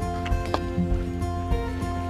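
Background instrumental music with held notes and a regular beat.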